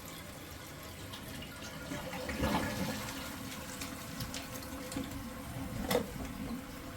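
Toilet refilling after a flush, with water running steadily through the refill tube and Kaboom Scrub Free dispenser into the bowl. A single sharp click sounds about six seconds in.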